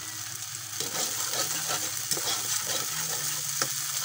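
Chopped garlic sizzling in hot oil in a frying pan, with a metal spatula scraping and stirring it against the pan in short strokes from about a second in.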